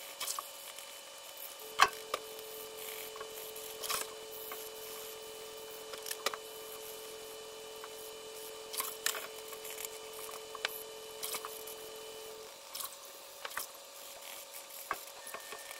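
Copper-bristle brush scrubbing a wet leather boot over a sink of soapy water, sped up: scattered scrapes, clicks and splashes, the sharpest about two seconds in. A faint steady hum runs under most of it.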